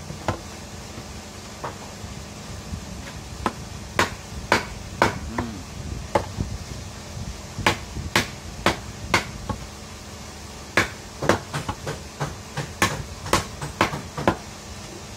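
A hand-made knife blade chopping into a wooden plank again and again, in a chop test of the knife's heat treatment. After a few scattered knocks in the first seconds, the blows come in runs of about two a second.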